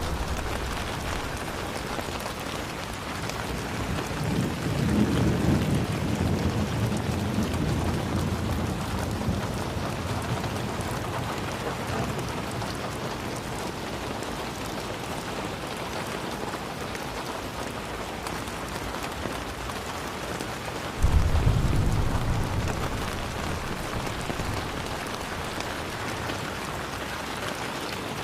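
Steady rain falling, with two rolls of thunder: a low rumble that swells about four seconds in and dies away over several seconds, and a sharper, louder clap about 21 seconds in that fades over a few seconds.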